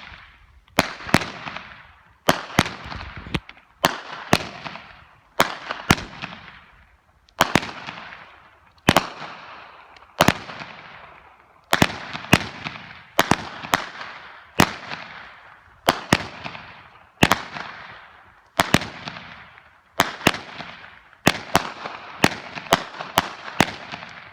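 Red Apple 25-shot aerial repeater firework cake firing shot after shot: each a sharp bang, often a quick double report, followed by a fading crackle, about every second and a half, with the shots coming faster near the end.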